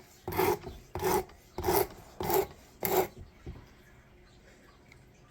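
Karambit knife's 8Cr13MoV steel blade drawn across coarse 50-grit sandpaper on a Work Sharp Precision Adjust sharpener: five quick scraping strokes, about one and a half a second, that stop about three seconds in. The coarse grit is grinding away steel to reset the edge bevel angle.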